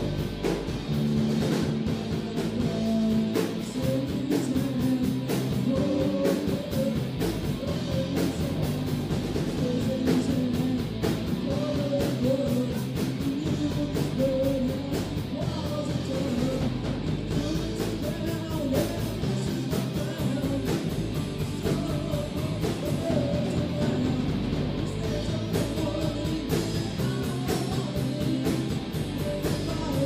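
Live rock band playing: two electric guitars, bass guitar and drum kit, with a male lead singer singing over them from a few seconds in.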